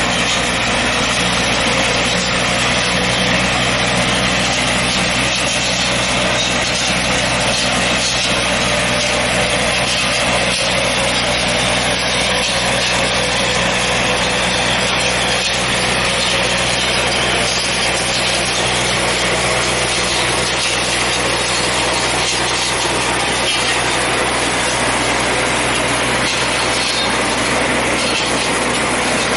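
Tractor engine running steadily while it drives a hydraulic hedge-trimming arm cutting through orchard tree branches, making a continuous mechanical drone with a constant rushing cutting noise over it.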